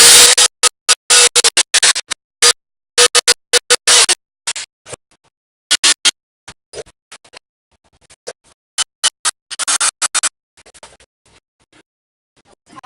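Handheld power drill running in short, stop-start bursts of the trigger while drilling a hole in metal, with a steady motor tone under the longer bursts.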